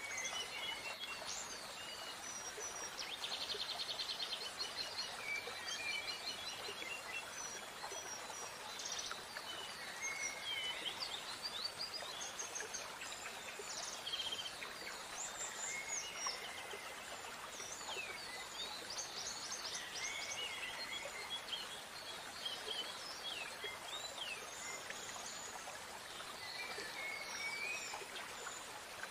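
Several birds singing at once: overlapping chirps, short whistled notes and quick trills, over a steady background hiss.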